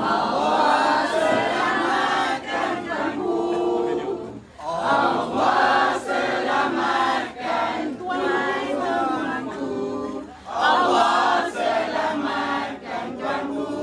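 A group of people singing a birthday song together in unison, in several phrases with short breaths between them.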